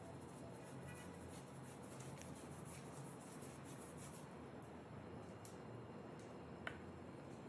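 Faint scratchy brushing of a paintbrush stroking and dabbing paint onto a canvas, over a low steady hum, with one sharp tick near the end.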